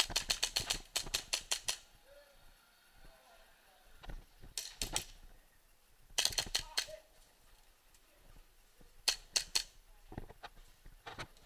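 Airsoft guns firing: a quick volley of about ten sharp snaps at the start, then short bursts of three or four shots about five, six and nine seconds in.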